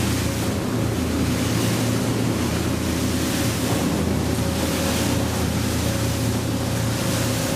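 Motorboat running at speed over choppy sea: a steady engine drone under the rush and splash of water, with wind buffeting the microphone.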